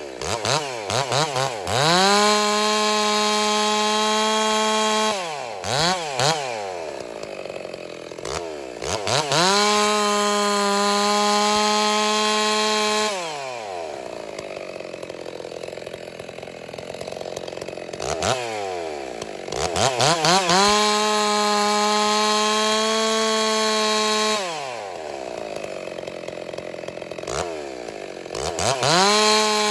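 Ported 660-clone two-stroke chainsaw with a 28-inch bar running at full throttle through three cuts of about four to five seconds each, then dropping back to idle between them, with quick throttle blips before the cuts and a rev-up again near the end. The chain has been freshly sharpened and is cutting smoothly.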